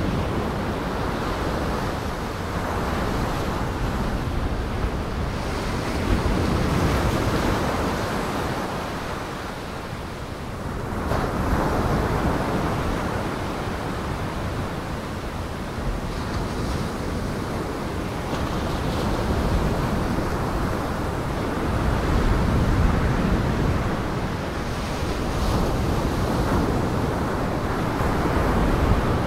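Storm waves on Lake Michigan breaking and washing ashore in a gale: a steady rushing surf that swells and eases in slow surges, with wind rumbling across the microphone.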